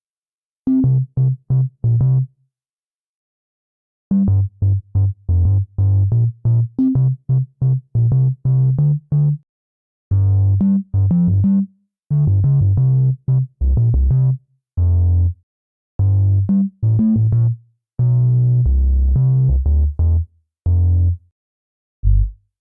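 A succession of synth bass loops: riffs of short, low, plucked-sounding bass notes, each loop stopping and the next starting after a brief silence, with a two-second gap about two seconds in.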